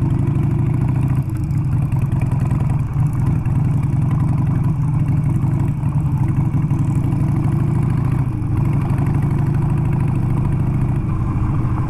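Motorcycle engine running at a steady, moderate pace while riding down a dirt road.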